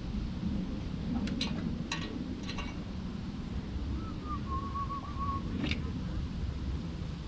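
A handful of sharp, irregular metallic clinks from hand tools and a socket on the nuts being tightened, with a short whistled note in the middle, over steady low background noise.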